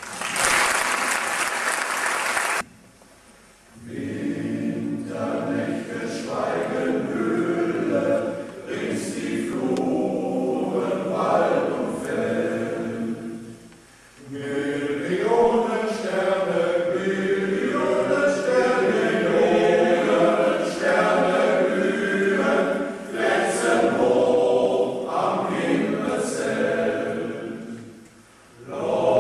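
A short spell of applause stops abruptly, then a male voice choir sings in long phrases with brief pauses between them.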